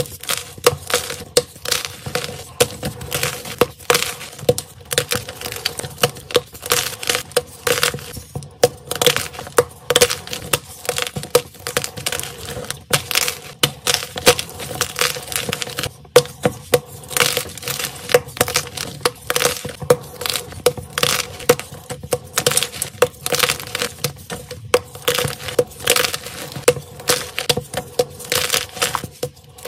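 Blocks of crunchy white gym chalk snapped and crushed between the fingers: a dense run of crisp cracks and crumbly crunches, one after another, as the pieces break down into powder.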